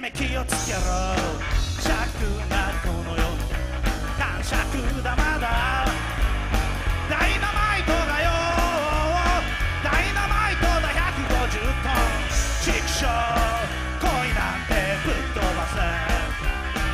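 Live rock band playing loud: electric guitars and a drum kit over a steady beat.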